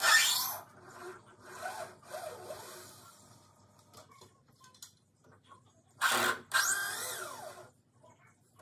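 Cordless drill backing screws out of a timber pergola beam in short bursts: a loud burst at the start, weaker ones over the next couple of seconds, and two more about six seconds in. The motor's whine falls away at the end of the last one.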